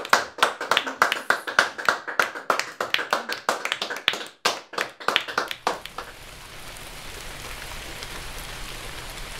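A few people clapping in applause for about six seconds, then steady rain falling.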